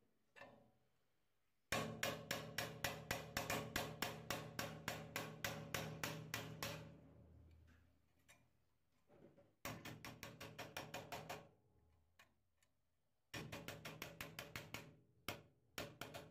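A hammer tapping a steel pin punch to drive the rivets out of a rusty steel hacksaw frame. The taps come in quick runs of about five a second: a long, loud run first, then two shorter runs and a few single taps near the end.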